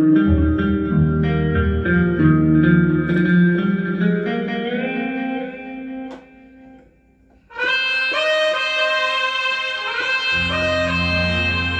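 Roland XPS-10 keyboard playing a plucked, guitar-like patch over a bass line. It fades out about six seconds in. After a short gap a brighter, sustained patch starts, and the bass joins near the end.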